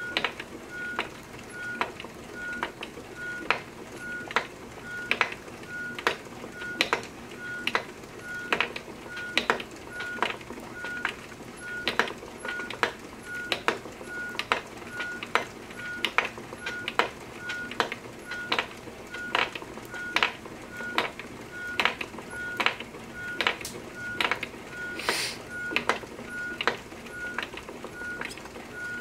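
Wooden treadle spinning wheel running, with a sharp click on each turn a bit more than once a second, while wool is drafted onto the flyer. A faint short high beep repeats about twice a second behind it, and there is a brief hiss near the end.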